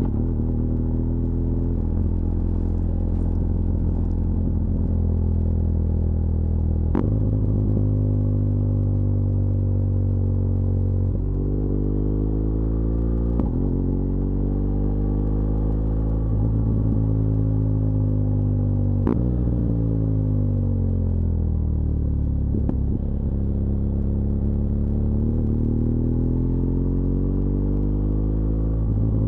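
BMW R1200GS LC Adventure's liquid-cooled boxer twin running on a mountain descent, its engine speed falling and rising between bends. Three sharp clicks, about six seconds apart, each come with a jump in engine pitch as the rider changes gear.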